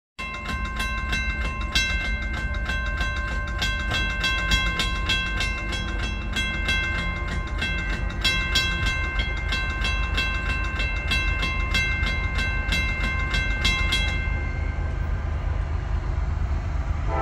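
Railroad grade-crossing warning bell ringing rapidly, about two to three strikes a second, which stops about 14 seconds in. A steady low rumble runs underneath.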